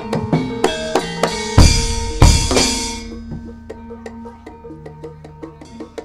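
Javanese gamelan-style ensemble music: sustained metallophone notes under rapid drum strokes, with two loud crashing percussion hits about one and a half and two and a quarter seconds in, after which the playing goes on more softly.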